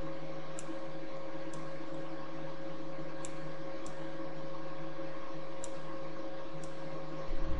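Steady electrical hum and hiss of background noise, with faint short ticks at irregular intervals of about a second and a soft low bump near the end.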